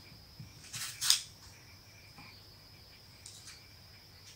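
Y-shaped vegetable peeler scraping strips of skin off an apple: a couple of short scratchy strokes about a second in and another near three and a half seconds, over a faint steady high whine.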